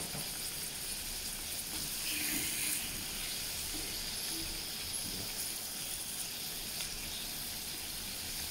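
Pork belly cubes sizzling steadily in a wok of melted brown sugar with a little water just added.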